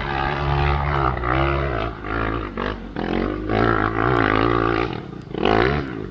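Dirt bike engines running close by, their pitch rising and falling as the throttle is blipped, with a last short rev about five and a half seconds in before the sound drops away.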